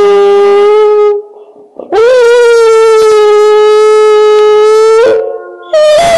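Hound dog howling: the end of one long howl, then a second that swoops up and holds one steady pitch for about three seconds, and a third starting near the end.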